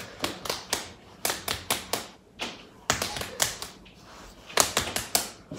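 Hand slaps in four quick runs of three or four, about five a second: fists pounding on open palms to count off rounds of rock, paper, scissors.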